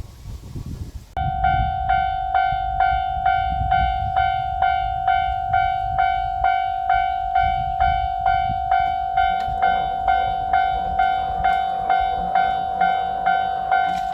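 Japanese railroad crossing warning bell starting about a second in and ringing steadily at about two strikes a second, the repeating electronic 'kan-kan' that signals a train is approaching. Low rumbling noise runs beneath it.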